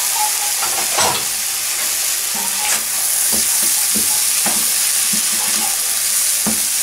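Fried rice with ham and peas sizzling in a hot wok with a steady hiss, while a wooden spoon stirs it with short scraping knocks against the pan.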